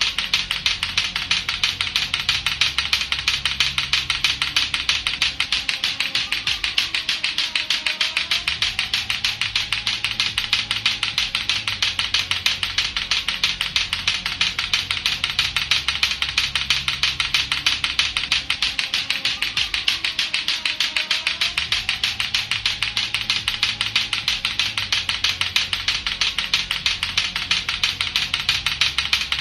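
Latto-latto clackers, two hard plastic balls on a string knocking together in a fast, steady run of sharp clacks, with a low rumble underneath.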